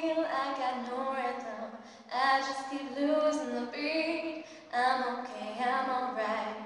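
A young girl singing solo and unaccompanied, in long held phrases with short pauses for breath about two seconds and four and a half seconds in.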